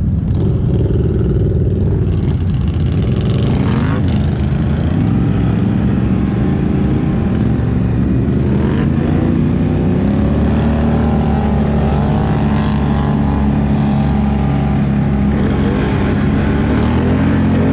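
ATV engine running hard, its note rising and falling with the throttle.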